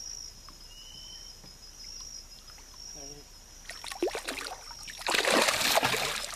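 A hooked fish thrashing and splashing at the water's surface: a short splash about four seconds in, then a louder, longer burst of splashing about five seconds in as it leaps clear of the water.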